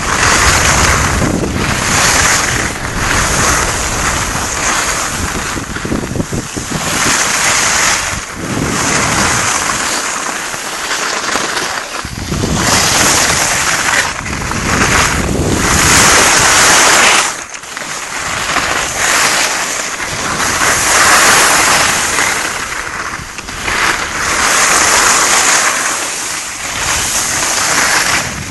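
Wind rushing over the microphone together with the hiss and scrape of skis on packed snow during a downhill run. The noise swells and fades every second or two, in time with the turns.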